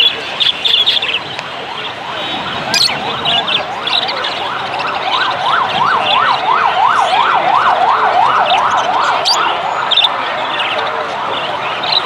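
An electronic siren in yelp mode, its pitch sweeping up and down about three times a second, starting about four seconds in and lasting some six seconds. Small birds chirp high and in short bursts throughout, loudest at the start and near the end.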